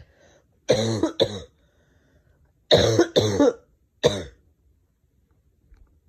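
Bouts of harsh coughing from a person with laryngitis: two coughs about a second in, a run of three around three seconds, and a last one just after four seconds. It is a deep cough, felt in the throat and chest.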